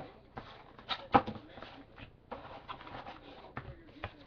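Rustling and irregular sharp knocks of a trading card box and its packaging being handled and opened close to the microphone, the loudest knock about a second in.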